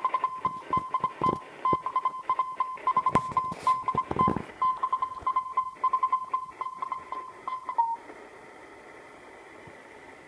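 Morse code (CW) on the 40-metre amateur band, heard through the speaker of a Sangean ATS-818CS shortwave receiver with its BFO on: a single beeping tone keyed in dots and dashes, broken by static crackles. The keying stops about eight seconds in, leaving steady band hiss.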